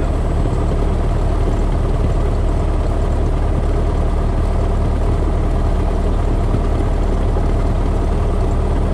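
Single-engine light aircraft's propeller engine idling steadily, heard close up from the engine cowling.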